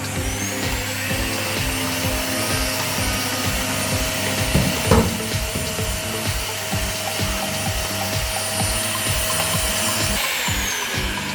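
Bosch GL 20 vacuum cleaner motor running with a steady high whine: it spins up at the start and winds down after being switched off about ten seconds in. Background music with a steady beat plays underneath.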